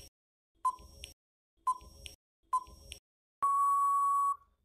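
Quiz countdown-timer sound effect: short electronic beeps about once a second, then one longer, steady beep lasting about a second that signals time is up.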